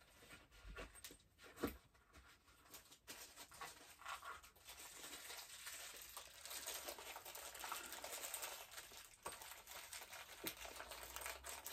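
Faint rustling and crinkling of packaging being handled, with a few small clicks and knocks as parts are fitted into the box.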